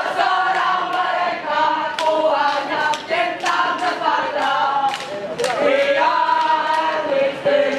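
A group of young scouts singing a yel-yel (scout cheer song) together in chorus, holding sung notes that change pitch, with a few sharp percussive hits.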